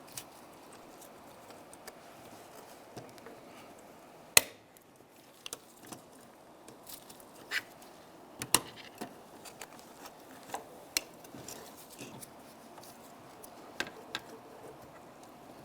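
Door latch cable end being worked free of its metal bracket with needle-nose pliers: scattered light metallic clicks and taps, with one sharp click about four seconds in and another about eight seconds in.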